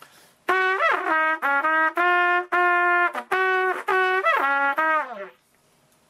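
Trumpet playing a short phrase of held notes ornamented with flips: quick lip-slurred leaps up above the note and back down to it. The phrase starts about half a second in and ends on a falling slide near the end.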